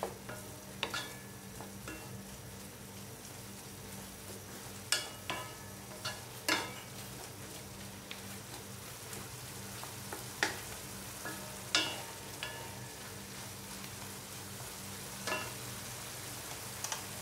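Ground beef frying and sizzling in the watery juices it has released, stirred with wooden spatulas that knock against the wok several times with a short ringing. A steady low hum runs underneath.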